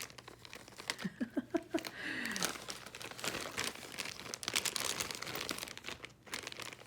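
Plastic packaging crinkling and rustling as small bags of kit parts are handled, with many small crackles.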